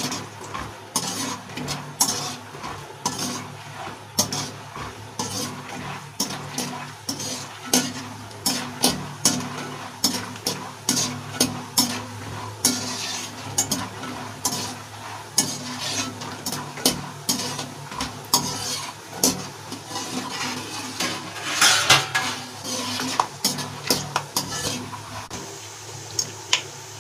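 Peanuts sizzling as they fry in ghee in an aluminium kadhai. A metal wire skimmer stirs them, clicking and scraping against the pan many times.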